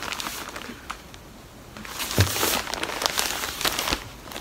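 Frosted plastic packaging bags crinkling and rustling as they are handled and shifted in a stack, louder and busier in the second half, with a soft thump about two seconds in.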